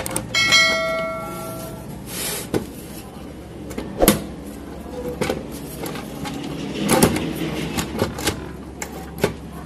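Mechanical bathroom scale being handled and fitted back together: scattered knocks and clicks of its casing and parts, the loudest about four and seven seconds in. Near the start a short ringing chime sounds and fades within about a second.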